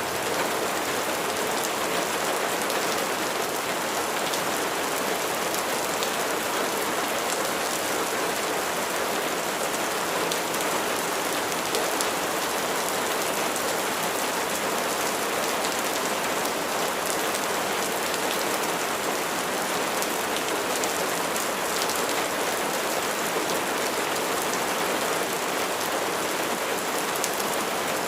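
Steady rain falling, a continuous patter of many drops on a surface.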